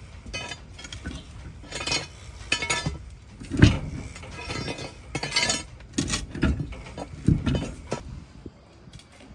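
Metal clinking and clanking: a string of separate knocks and rattles with a ringing edge, the loudest about three and a half seconds in, dying down near the end.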